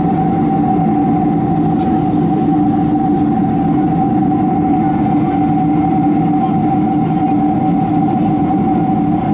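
Steady aircraft engine drone heard inside the passenger cabin: two constant humming tones over a continuous rushing noise, holding level throughout.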